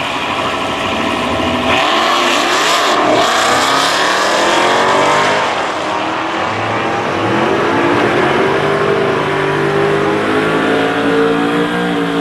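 A Dodge Charger SRT Hellcat's supercharged V8 and a classic Mopar muscle car launching off the drag-strip start line about two seconds in and accelerating hard, the engine pitch climbing and dropping back with each gear change.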